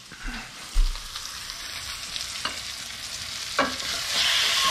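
Sliced onions and bell peppers sizzling in a stainless steel skillet as a wooden spoon stirs and scrapes them, with a few short knocks of the spoon on the pan. The vegetables are cooked down, and the sizzle grows louder about four seconds in.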